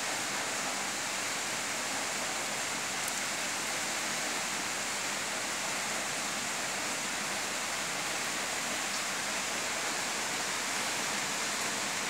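Steady, even hiss of background noise, with no other sound.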